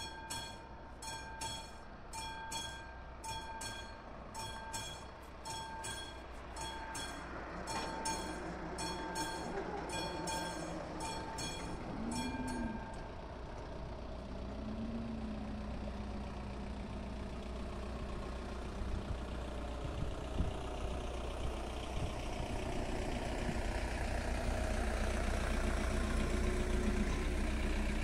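Classic electromechanical level-crossing bell of an AŽD 71 crossing, ringing in steady strokes while the barriers lower and falling silent about 13 seconds in, once they are down. After that, a rumble grows steadily louder as a train approaches.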